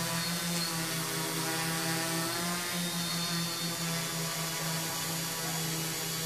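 Large multirotor drone hovering, its propellers giving a steady, many-toned hum that wavers slightly as the rotors adjust.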